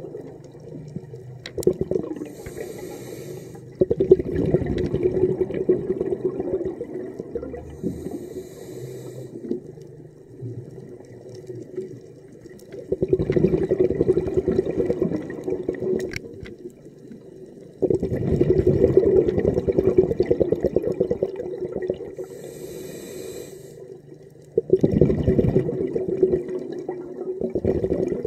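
Diver breathing through a scuba regulator underwater: a short hiss on each inhale and a rush of exhaled bubbles, about four breaths, over a steady low hum.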